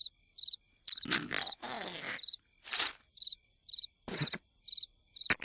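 Cartoon cricket chirps, short pulsed trills repeating about twice a second, broken by a few short noisy sound effects: a longer one a second in, then two brief ones.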